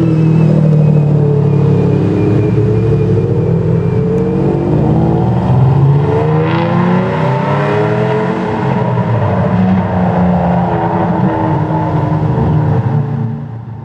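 Ferrari Enzo's V12 engine running, its note rising and falling gently. The sound fades away near the end.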